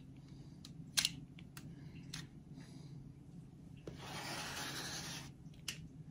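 Spatula scraping and spreading melted chocolate over a foil-lined baking pan: a few light taps and clicks, the loudest about a second in, then a steady scrape lasting about a second and a half from about four seconds in.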